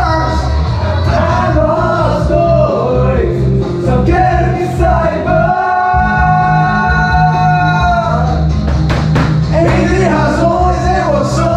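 Karaoke backing track playing through the room's speakers, with amateur singers singing along into microphones in Portuguese. About halfway through, one note is held for roughly two seconds.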